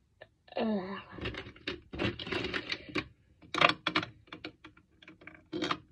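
Plastic lip-product tubes and cases clicking and knocking against a plastic makeup organiser as they are slotted into its compartments: an irregular run of light taps and clacks.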